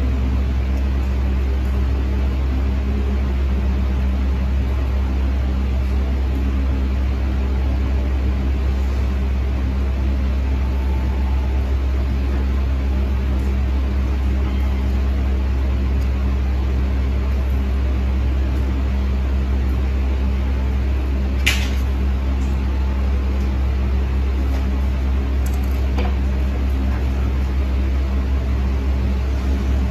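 Steady low electric hum of a running machine, unchanging throughout, with one sharp click about two-thirds of the way in and a fainter click a few seconds later.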